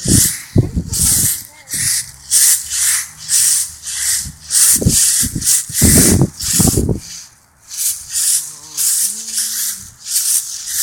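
Rhythmic rustling of someone walking with a handheld phone, about two strokes a second, with low thumps in between.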